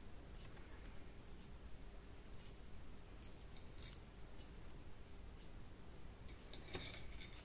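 Faint handling noise: a few small clicks and rustles as a disassembled encoder housing and its bundle of wires are turned over in the fingers, with a slightly louder rustle near the end.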